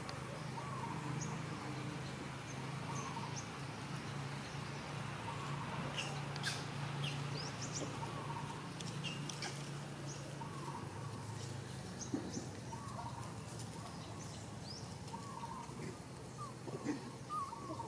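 Birds chirping: repeated short calls over and over, with scattered thin high chirps above them, over a steady low hum.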